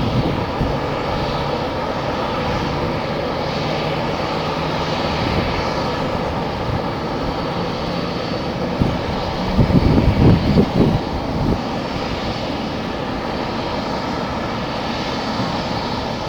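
Jet airliner engines running with a steady whine and rush. For a couple of seconds around the middle, gusts of wind buffet the microphone with a low rumble.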